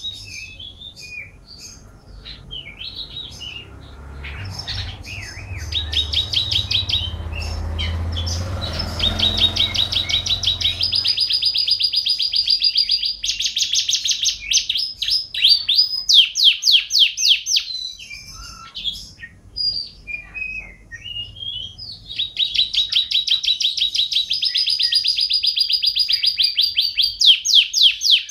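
Domestic canary singing: long runs of fast, even trills and rolls, broken by short chirps and warbling notes, with a quieter stretch of scattered notes a little past the middle. A low rumble sits under the song during the first third.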